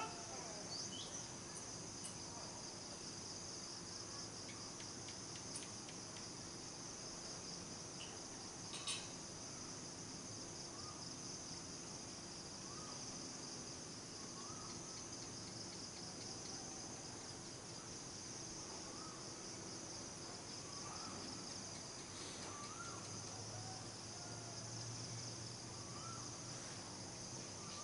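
Insect chorus: a steady, high-pitched, finely pulsing trill. Faint short rising calls are scattered through it, and a brief sharper sound comes about nine seconds in.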